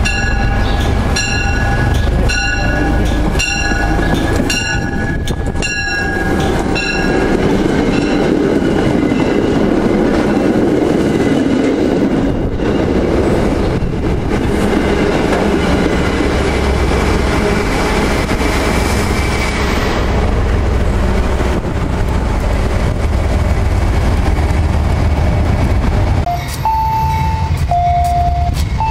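MBTA commuter rail train pulling into the station: a bell rings steadily, a little under twice a second, for the first several seconds, then the coaches rumble past. A two-tone beeping starts near the end.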